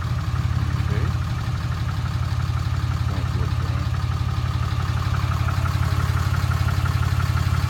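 Dodge Ram 3500 pickup's engine idling steadily with a fast, even low throb.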